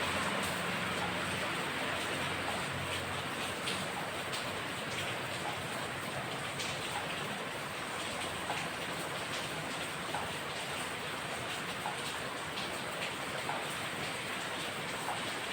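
Steady rain falling, with scattered drops ticking on a surface.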